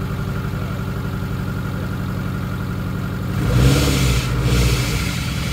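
Nissan Pulsar GTiR's SR20DET turbocharged four-cylinder engine running at a steady idle, with a brief rise in revs about three and a half seconds in before it settles back.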